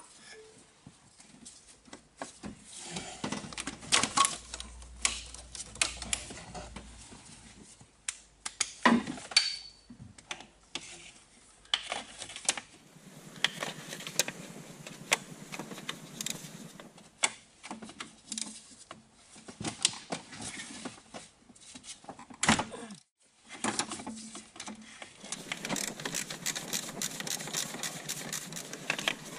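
Metal hand tools working on bolts in a car's engine bay: irregular metallic clicks and clinks, with quick runs of ticking in places.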